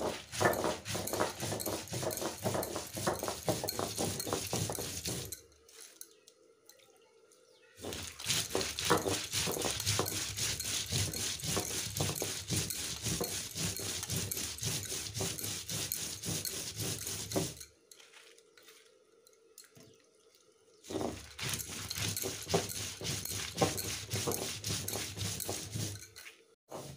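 Stone roller grinding spices into a paste on a grooved stone slab (sil-batta): rapid gritty scraping and rolling strokes of stone on stone. The grinding comes in three bouts, broken by two short pauses.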